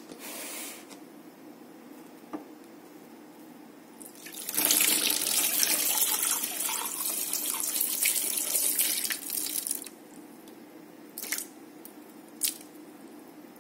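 Water running and splashing in a sink and a glass bowl for about five seconds, then two short splashes near the end as the bowl of dirty soapy water is emptied.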